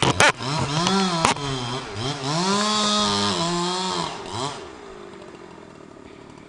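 Chainsaw engine revving up and down as the throttle is worked, with two sharp knocks in the first second and a half. About four and a half seconds in the revving dies away to a quieter steady sound.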